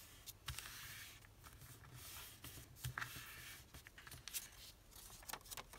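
Sheet of origami paper rustling faintly as hands press and crease it flat into a triangular waterbomb base, with scattered soft ticks of fingers on the paper.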